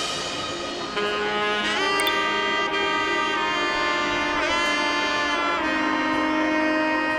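Background music: a lead melody of long held notes that slide up and down in pitch, on a wind instrument such as a saxophone, with the drums dropping out.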